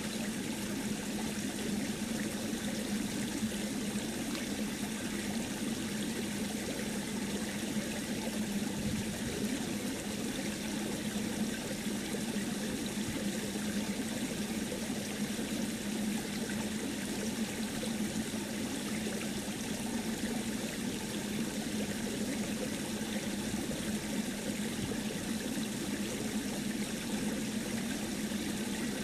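A steady rushing noise, like running water, with a low hum beneath it.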